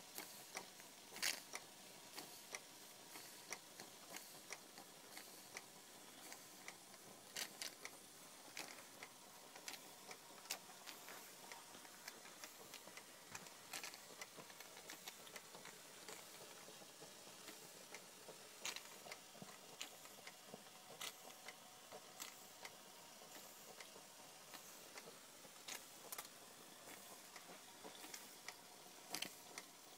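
Schoenner 107/14S toy steam engine ticking over slowly on one burner: faint, irregular light clicking from the running engine over a low hiss.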